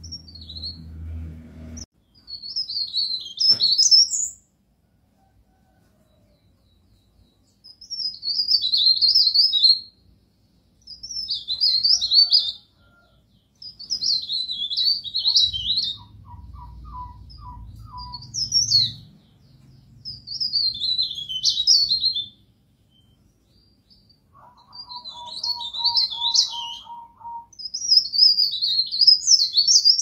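Pare-pare bird singing repeated phrases of quick, high twittering song, each about two seconds long with short pauses between them. A lower, even rapid trill sounds twice behind the song, in the middle and in the last third.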